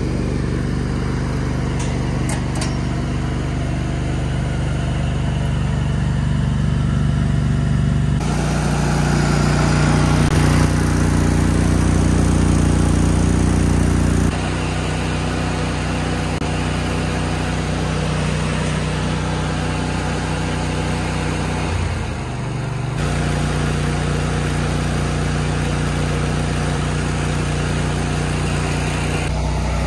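Engine-driven welding machine running steadily, its hum shifting in pitch abruptly several times.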